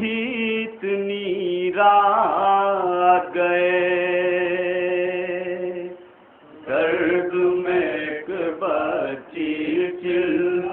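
A man chanting a noha, a Shia lament, into a microphone. He draws out long held notes and breaks off briefly about six seconds in before going on.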